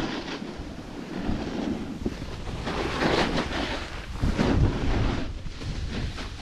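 Wind buffeting the microphone of a 360 camera carried by a riding snowboarder, with the board's edge hissing and scraping over packed snow in surges as it carves through turns, loudest about three and four and a half seconds in.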